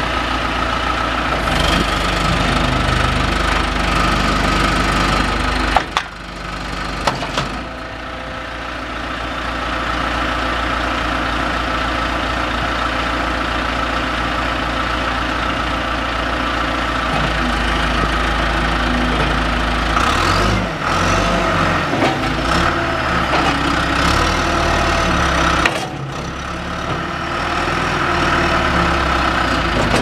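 John Deere 410G backhoe loader's diesel engine running steadily. Past the halfway mark the engine note changes and turns uneven as it works the hydraulics, with a faint high whine, while the front loader bucket is lifted.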